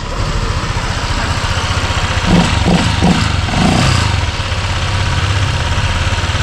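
Honda PCX 150 single-cylinder scooter engine starting and idling steadily on its first run after a rebuild (new connecting rod, cylinder, piston and rings following oil starvation), with a few brief louder patches a couple of seconds in. It runs nice and quiet.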